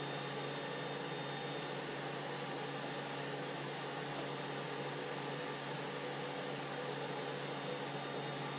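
Steady whir of a powered-on Creality CR-10 3D printer's cooling fans, with a low even hum underneath.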